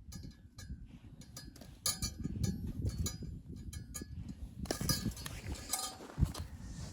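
Repeated light clinks and knocks of hard objects being handled, some with a brief ring, over a low rumble.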